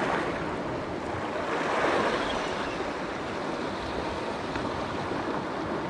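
Sea waves breaking and washing along a rocky shore: a steady rush that swells about two seconds in.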